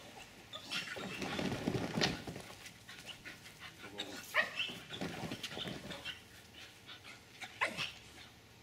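Staffordshire bull terriers making excited dog noises while playing: short, high yelps and whines among rougher scuffling sounds, loudest about one to two seconds in.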